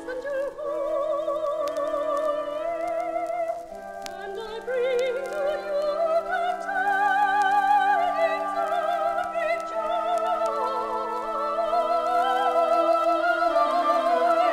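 Classical vocal music: a high voice singing long, wavering notes with vibrato over sustained accompanying chords, from a vinyl LP transfer with faint scattered clicks.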